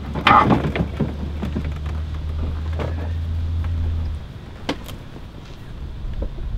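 Plastic front bumper cover of an E39 BMW 5 Series being pulled free of the car: a loud plastic clatter about half a second in, then a few light knocks, over a steady low hum that cuts off about four seconds in.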